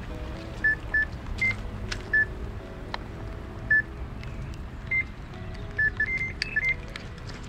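Electronic carp bite alarm on a rod pod giving single, irregular bleeps at two pitches, coming faster near the end as line is pulled from the rod: a carp bite.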